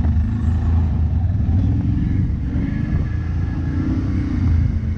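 Quad bike (ATV) engine running while riding over a sandy track, a steady low rumble whose pitch rises and falls a little with the throttle.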